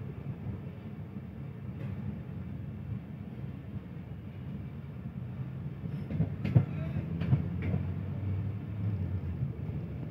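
Passenger coach pulling out of a station, heard from its open doorway: a steady low rumble of wheels on the track, with a few sharp clicks and knocks over the rail joints in the second half.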